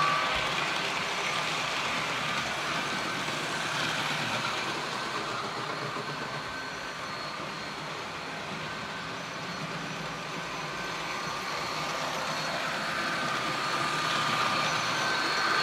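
Model trains running on track: a steady rolling rattle from the wheels and motors of the Rapido F40PH locomotive and its passenger cars. It is loudest as the cars pass close at the start, and swells again near the end with a steady whine as trains come round toward the camera.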